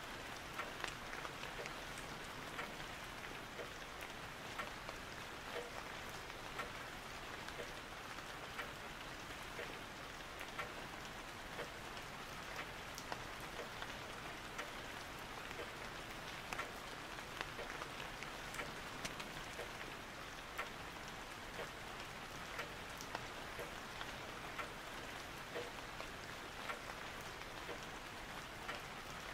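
Steady rain falling: an even hiss dotted with many small ticks of drops.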